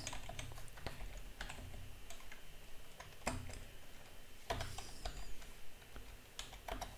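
Computer keyboard being typed on: scattered, irregular keystrokes, a few at a time with short pauses between.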